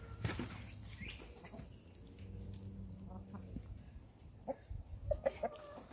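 Hens clucking, with a drawn-out call in the middle and a few short clucks near the end, over footsteps on the dirt of the pen.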